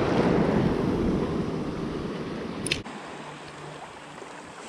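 Sea water washing and splashing against shore rocks with wind buffeting the microphone, loudest at first and easing off. A single sharp click about two-thirds of the way through, after which the wind rumble drops.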